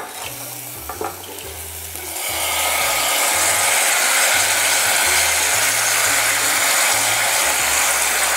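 Raw long-grain rice poured into a saucepan of hot ghee with sauteed onions and whole spices, setting up a steady hiss and sizzle from about two seconds in.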